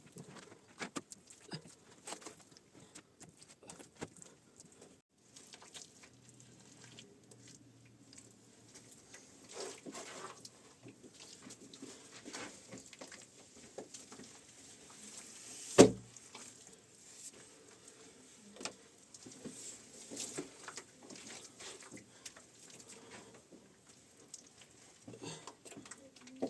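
Scattered light taps, knocks and scrapes of work going on, with one loud, sharp knock about sixteen seconds in.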